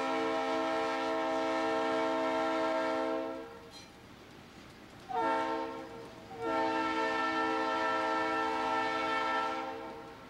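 Conrail GE diesel locomotive's air horn sounding: a long blast ending about three seconds in, a short blast about five seconds in, then another long blast. This is the closing long, short, long of the standard grade-crossing signal.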